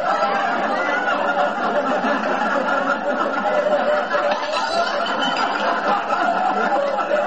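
Several boys laughing and chattering over one another, a continuous jumble of voices with no break.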